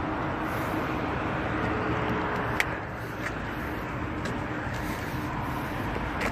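Steady road traffic noise from a busy multi-lane street, with a faint steady hum and a few light clicks.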